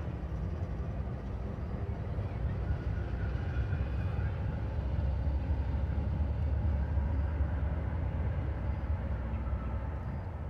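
Freight train crossing a steel truss trestle bridge: a steady low rumble that swells a little midway.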